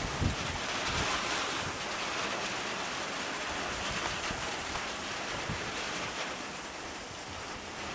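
Steady rain falling, an even hiss, with a few brief low bumps right at the start.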